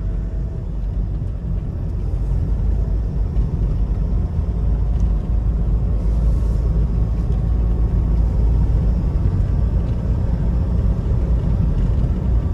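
Toyota Innova driving, a steady low engine and road rumble from inside the cabin that grows a little louder about two seconds in. The engine and gearbox mounts are freshly replaced, and the body vibration they caused is gone.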